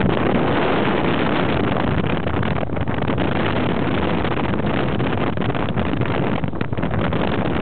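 Steady rush of wind and road noise in a moving car, with wind buffeting the microphone.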